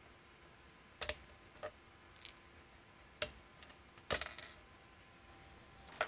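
Hands handling small 3D-printed plastic parts close to the microphone: a scattering of light clicks and taps, with the loudest cluster about four seconds in and another at the end.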